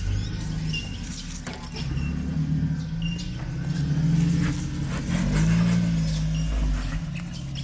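4x4 engine running at low revs, its pitch rising and falling, with scattered knocks and short high squeaks over it.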